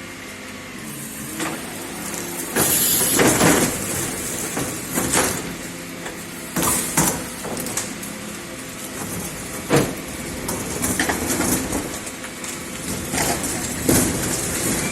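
Garbage truck running, with a series of irregular loud bangs and metallic clatter over its steady engine hum.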